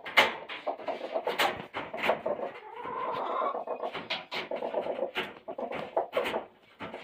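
Hens clucking in quick, repeated short calls, mixed with sharp taps and clicks, with one longer rising call about three seconds in.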